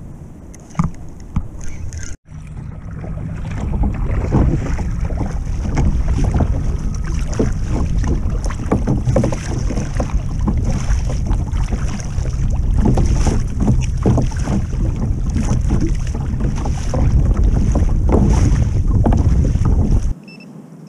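Wind buffeting the microphone and water splashing against a plastic kayak's hull, loud and continuous from about two seconds in, stopping abruptly near the end.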